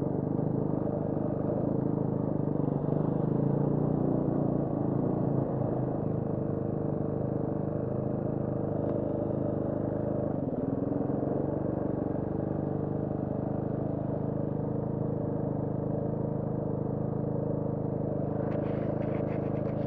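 KTM 350 Six Days four-stroke single-cylinder dirt bike engine running steadily at low revs, near idle, with a brief dip in pitch about halfway through. A few light clicks come near the end.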